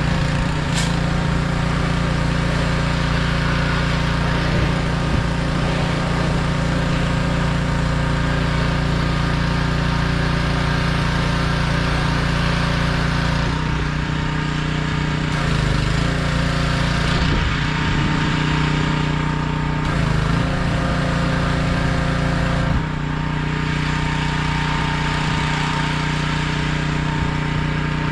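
Small gasoline engine of a pressure washer running steadily, its note shifting several times in the second half.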